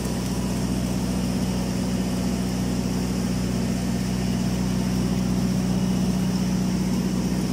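Steady hum of an automatic girth welding machine running on a tank seam, welding at about 400 amps and 28 volts. The drone holds even throughout, growing slightly louder about halfway through.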